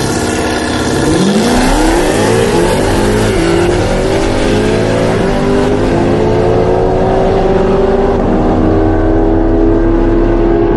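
Supercharged 6.2-litre LT5 V8 of a tuned C7 Corvette ZR1 making a full-throttle quarter-mile drag run. It holds a steady note at the line, then about a second in launches, climbing in rising sweeps broken by several upshifts, and settles into a high, slowly rising note as it pulls to the finish.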